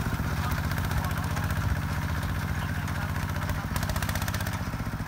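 Single-cylinder diesel engine of a walk-behind tractor converted to a ride-on 4x4, running steadily under load with a rapid even chugging as it pulls a three-disc plough through dry soil. It grows a little fainter towards the end as the tractor moves away.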